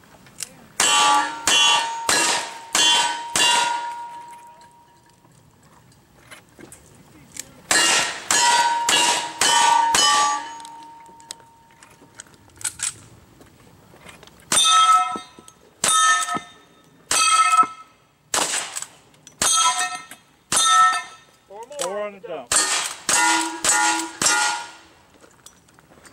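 Gunshots at steel targets, each shot followed by the ringing clang of a hit plate. There are two quick strings of shots, then a stretch of single shots spaced about a second apart, and a last quick string near the end.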